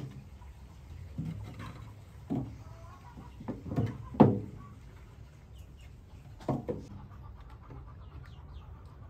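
Split firewood pieces knocking against each other and against a cast-iron wood stove as they are handled and stacked, a series of separate wooden knocks, the loudest about four seconds in.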